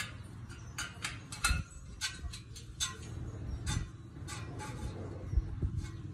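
Irregular sharp metallic clicks and ticks from a spoked motorcycle wheel being trued in a truing stand, a spoke wrench working the spoke nipples and the wheel turned by hand. A low steady hum runs underneath.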